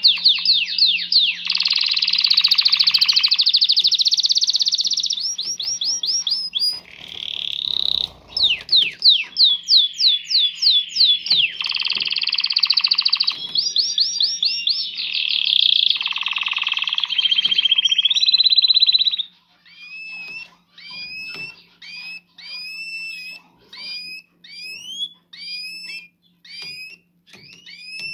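Canary courtship song: fast trills and rolls of repeated notes for about the first two-thirds, then quieter short rising call notes at about one a second.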